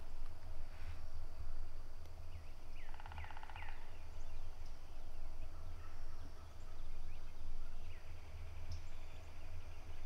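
Osceola wild turkey gobbling, with one clear gobble about three seconds in.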